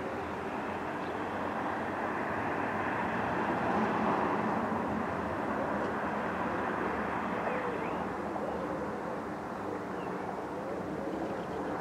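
Diesel engines of a CrossCountry Voyager multiple unit running as the train approaches slowly: a steady drone with a low hum, swelling slightly a few seconds in.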